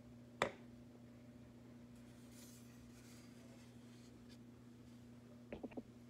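Quiet handling sounds: one sharp click about half a second in, then a quick run of three or four light knocks near the end, over a steady low electrical hum.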